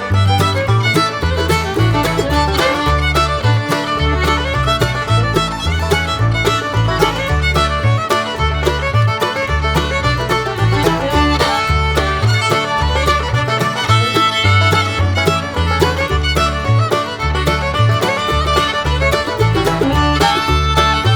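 Background music: an upbeat fiddle tune over a steady, pulsing bass.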